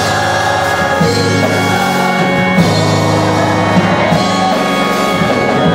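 Live gospel worship music: a church band holding sustained chords over a bass line with light drum hits, with singing.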